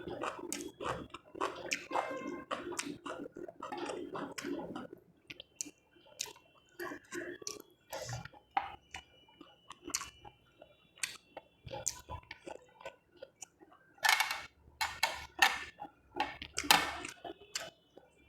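Close-miked chewing and mouth sounds of a person eating: many short wet clicks and smacks, with a run of louder ones near the end.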